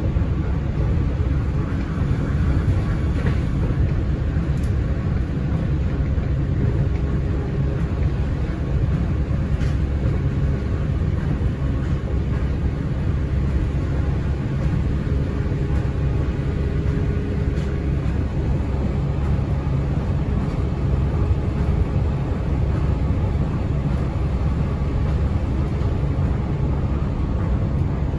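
Yui Rail monorail car running along its elevated guideway, heard from inside the car: a steady, even rumble with a faint hum.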